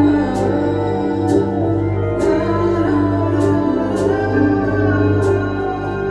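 Ambient music from a live jam session: a steady low drone under slowly shifting held tones, with a light high tick about once a second.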